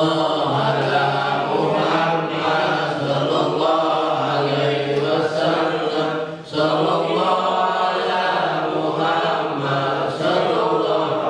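Men's voices chanting a sholawat, the Islamic devotional chant in praise of the Prophet, together in a slow melody of long held notes, with a short break about six and a half seconds in.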